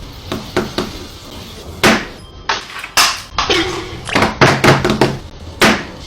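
A series of irregular knocks and thuds, about a dozen sharp hits spread unevenly over several seconds.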